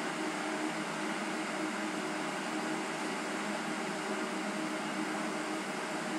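Steady hum and hiss, with a few faint low tones and no distinct events.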